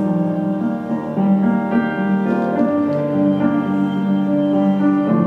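Background piano music, with held notes and chords changing about every half second to a second.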